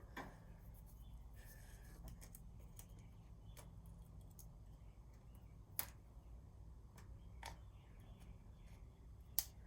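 A few sharp clicks and light taps of small tools or metal parts being handled, the loudest two about six and nine and a half seconds in, over a low steady hum.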